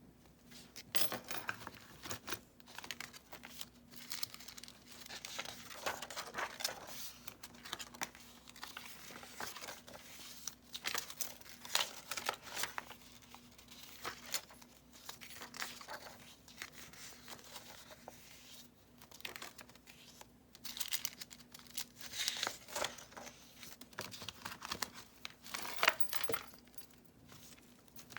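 Paper pages of a junk journal made of mixed book pages and coffee-dyed paper, turned and handled one after another: repeated rustles and crinkles with occasional sharp clicks.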